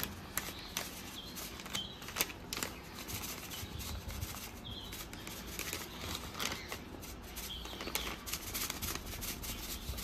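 Faint rustling with many scattered light clicks and taps: hands handling detergent powder and clothes at a top-load washing machine.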